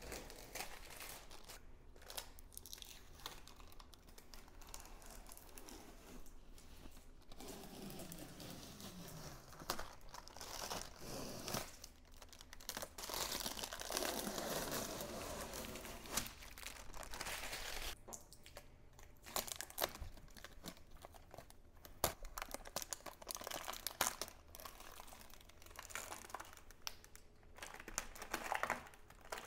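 Plastic packaging crinkling and tearing as it is handled, in irregular stretches with a few sharp clicks.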